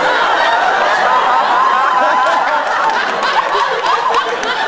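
Live theatre audience laughing, many voices at once.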